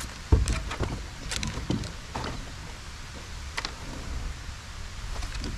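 Handling noises in a plastic kayak as a crappie is brought in: a sharp knock about a third of a second in, then scattered clicks and bumps from the hull and fishing gear, over a steady low wind rumble on the microphone.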